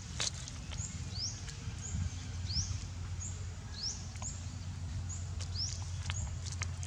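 Dry leaf litter crackling and rustling in scattered clicks as macaques walk and handle food, over a steady low hum. A high, rising chirp repeats about once a second throughout.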